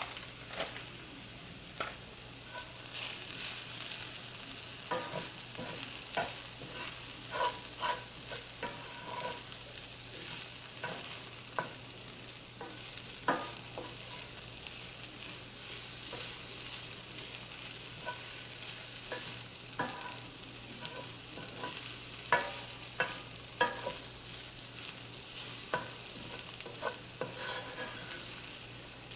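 Vegetable enchilada filling with cheese stirred in, sizzling in a frying pan over medium heat. The sizzle is steady and grows louder about three seconds in, with frequent scrapes and taps of the stirring utensil against the pan.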